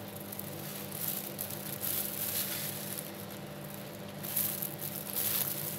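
Soft rustling of clear plastic food-prep gloves and light handling sounds as cooked chicken filling is put into a samosa wrapper, over a steady low hum.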